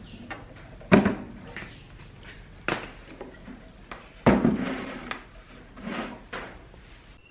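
Metal case of a power amplifier set down on a wooden table with a heavy thump about a second in, then knocked and shifted about on the wood, with the loudest thump about four seconds in.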